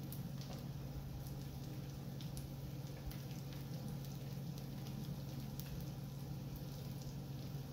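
Eggs frying on an electric griddle: a soft sizzle with scattered small pops and crackles of fat, over a steady low hum.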